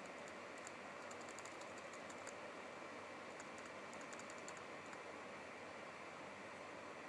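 Faint computer keyboard typing: two short runs of key clicks, one starting about half a second in and another a little past the middle, over a steady hiss.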